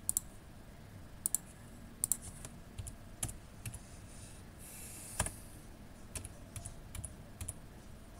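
Typing on a computer keyboard: irregular key clicks, with one sharper keystroke about five seconds in.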